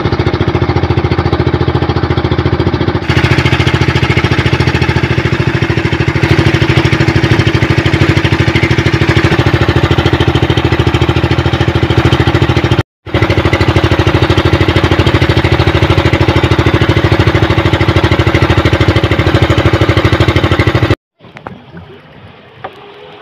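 Fishing boat's engine running loud and steady with a rapid, even pulsing, heard from on board. It breaks off briefly about halfway through and gives way to faint handling sounds a couple of seconds before the end.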